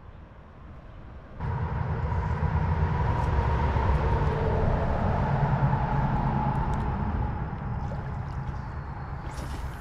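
A steady, low vehicle rumble with a faint hum, starting suddenly about a second and a half in and easing off slightly near the end.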